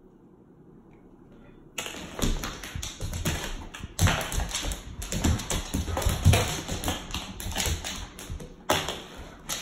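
Alaskan Malamute's claws clicking and paws thudding on a hardwood floor as he pounces and scampers in play, a rapid, irregular clatter of taps that starts about two seconds in.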